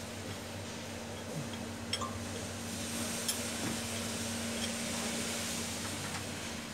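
Travelator drive machinery running with a steady hum, with a few sharp metallic clicks about two and three seconds in; the handrail drive chain is slack, dragging and noisy.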